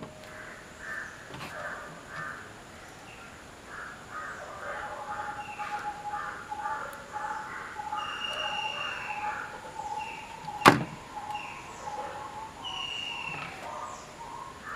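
Birds calling: a run of rapid, harsh repeated calls, about three a second, with a couple of falling whistled notes. A single sharp click cuts in about ten and a half seconds in and is the loudest sound.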